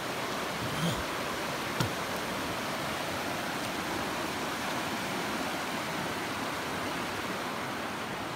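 Steady rushing of a fast, shallow river running over rocky rapids, with a single sharp knock about two seconds in.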